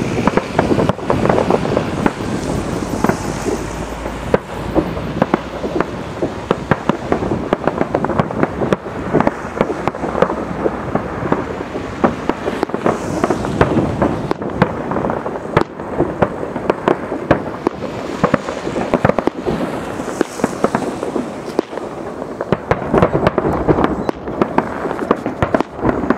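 Aerial firework shells bursting all around: a dense, unbroken run of bangs and crackle, many overlapping, with no let-up.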